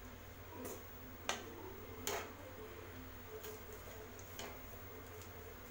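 Wooden spatula stirring rice in an aluminium kadai: faint scraping with a handful of irregular knocks of the spatula against the pan, over a steady low hum.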